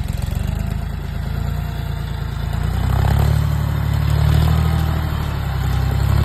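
John Deere 5055E tractor's diesel engine running, growing louder about three seconds in as it takes the load of the front-loader hydraulics raising the grab and its heavy bag.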